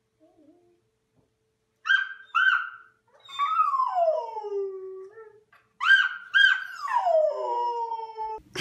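Golden retriever howling: twice, two short sharp yips lead into a long howl that falls steadily in pitch.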